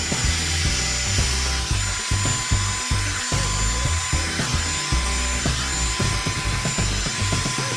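Revlon One Step hair dryer brush running, a steady rush of air with a thin steady tone, as it is worked through hair. Background music with a bass line plays underneath.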